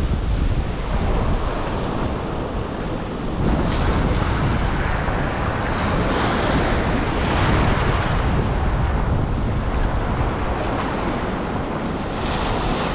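Ocean surf breaking and washing up the beach, with wind rumbling on the microphone. The wash swells louder a few times as waves come in.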